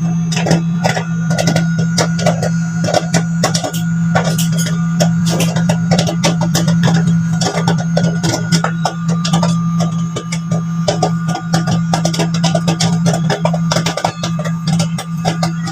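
Popcorn popping rapidly in a microwave oven: dense, irregular pops over the oven's steady low hum.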